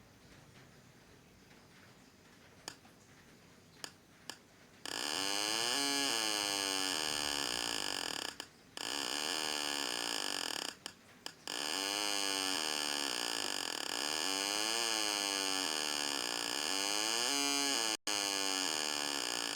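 Homemade two-transistor (S9014/S9015) alarm siren sounding through a small speaker: a harsh electronic wail sweeping up and down in pitch. It starts about five seconds in after a few clicks and cuts out briefly a few times.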